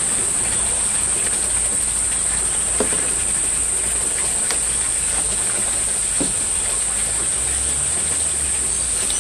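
Insects keep up a steady, high-pitched drone. A few faint knocks come from the PVC sediment lift pipe as it is lifted out of the filter.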